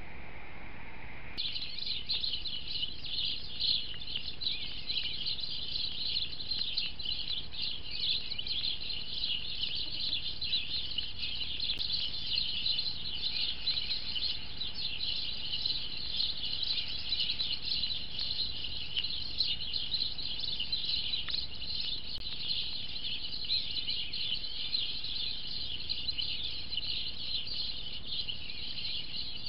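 A dense, steady chorus of many small birds chirping over each other, high-pitched. It starts suddenly about a second in.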